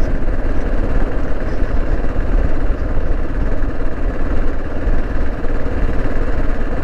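Kawasaki KLR 650's single-cylinder four-stroke engine running at a steady speed, without revving.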